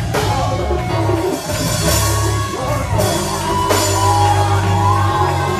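Live gospel praise music from a church band: drum kit with cymbal crashes over a steady, heavy bass line, with wavering sung or keyboard melody lines above.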